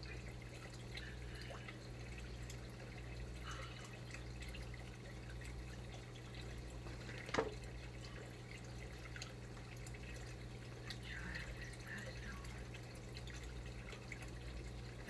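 Faint ticks and clicks of a hand screwdriver driving screws into a plastic RC car chassis, with one sharper click about seven seconds in, over a steady low hum.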